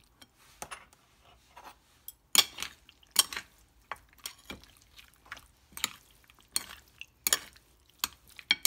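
Metal chopsticks and a metal spoon clinking and scraping against a ceramic plate while tossing spare ribs in their marinade, in irregular sharp clicks.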